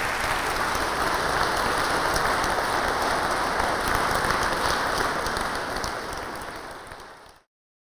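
Large audience applauding steadily at the end of a talk, easing off slightly near the end before cutting off suddenly.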